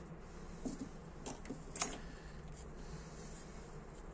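A few light clicks and taps as small tools and parts are handled on a workbench, the sharpest about two seconds in, over a faint steady hum.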